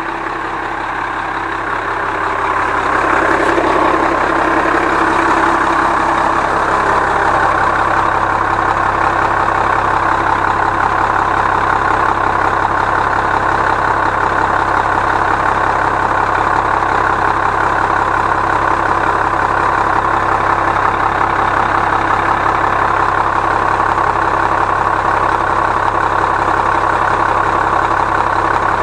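Cummins 8.3 straight-six diesel idling, loud, with its engine-driven air compressor building pressure for the air brakes and air suspension. It grows louder over the first few seconds, then holds steady.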